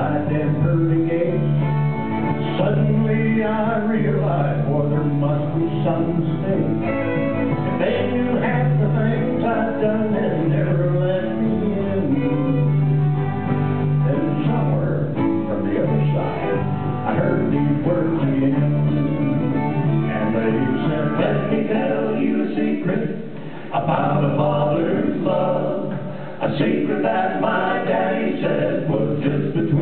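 Live country-western band playing a slow song: fiddle, strummed acoustic guitars and upright bass, with sung vocals. The music drops away briefly twice near the end.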